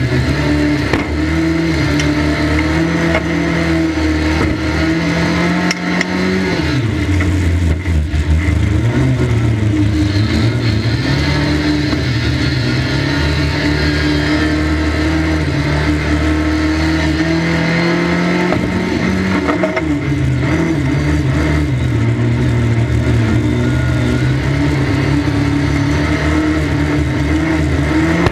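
1300 stock car's engine heard from inside the cockpit, running hard under race load. Its pitch drops several times as the car lifts off and climbs again as it accelerates around the track.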